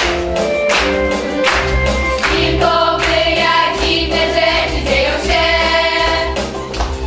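Music with a regular beat, and a group of voices singing together from about two and a half seconds in.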